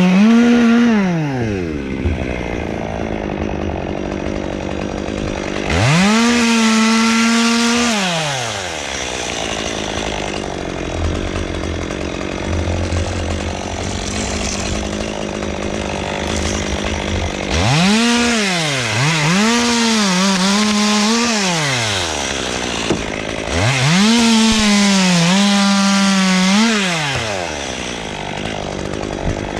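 Chainsaw engine revving up to full throttle and falling back to idle several times. There is one rev about six seconds in, three quick ones near eighteen seconds, and a longer one at about twenty-four seconds.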